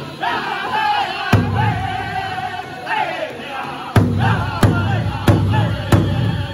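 Powwow drum group of men singing together in high, wavering voices around a large hand drum. One drum stroke lands about a second in, then from about four seconds in the drum is struck in a steady beat, about one and a half strokes a second.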